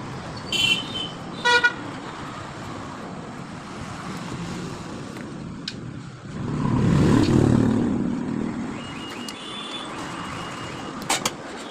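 Street traffic: two short horn toots in the first two seconds, then a vehicle passing by, loudest about seven seconds in.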